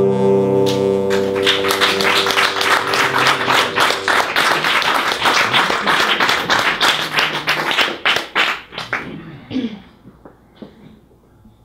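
Two guitars, a nylon-string acoustic and an archtop electric, let a final chord ring out. From about a second in, audience applause comes in over it and dies away near the end.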